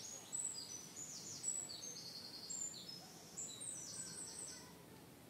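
Faint songbird singing outdoors: a run of short, high chirps, each sliding down in pitch, that stops shortly before the end.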